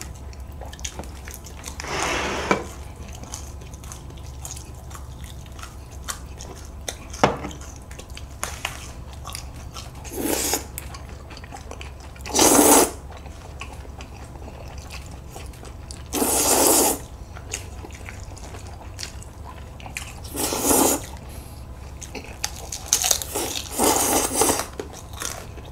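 Jjajangmyeon (black-bean-sauce noodles) being slurped up in about seven short, loud slurps spread through the stretch, with quieter chewing and a few small clicks between them.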